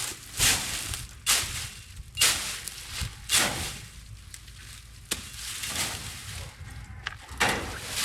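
Dry brush and leaves crunching and rustling in irregular rough strokes about a second apart.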